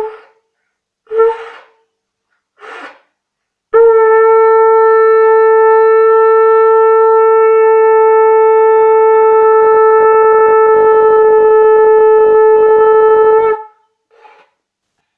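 Conch shell (shankh) blown with several short blasts and a weak puff, then one long steady note held for about ten seconds before it stops. It is the customary conch call at the close of a puja.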